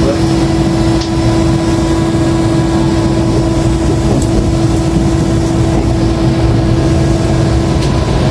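Inside a KRL Commuter Line electric train as it pulls out of a station: steady running noise with a constant strong hum that stops near the end.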